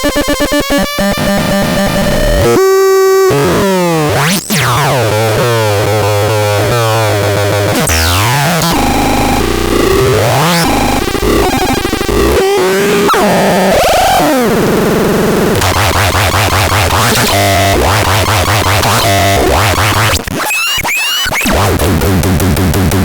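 Electronic noise synthesizer playing harsh, glitchy tones: stuttering buzzes, pitches sliding up and down, and a fast repeating low pulse in the second half, with a brief dropout near the end.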